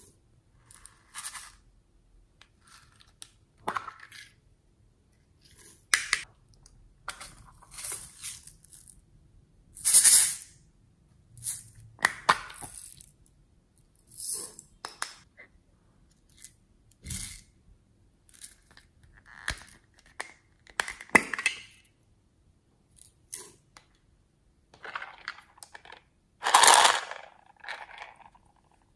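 Small plastic containers being handled: short clicks, taps and scrapes of plastic cases and lids, with sequins and beads being tipped out. The sounds come in scattered bursts with quiet gaps between them.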